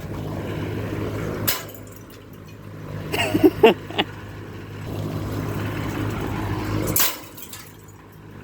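Vintage Kellair-made Homecrest box fan running with a steady motor hum, while pieces of its brittle broken plastic grill clack against the spinning blades: a sharp clack about 1.5 s in, a cluster of them around 3 to 4 s, and another near 7 s.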